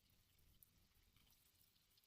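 Near silence, with faint scattered crackles: sliced onions frying in oil in a kadhai.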